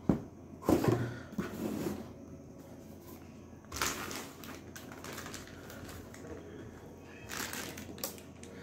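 Handling noises of a laptop being moved and set down on a desk: a few sharp knocks and light clicks spread through, with soft rustling between them.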